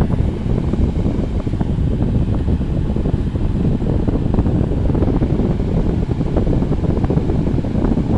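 2016 Frigidaire 5,000 BTU window air conditioner's fan running on high, its airflow blowing across the microphone as a loud, steady rush.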